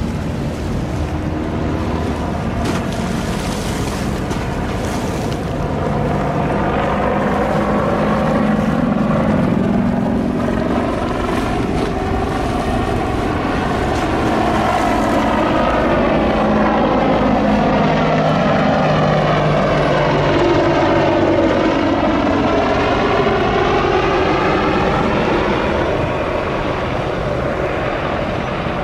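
AH-64 Apache attack helicopter flying past, a steady loud rotor and engine noise that grows a few seconds in and eases off near the end.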